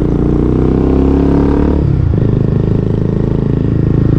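Honda Twister 250's single-cylinder engine running through a megaphone exhaust while being ridden, accelerating with a rising note for about two seconds. The note then breaks off and settles lower and steadier.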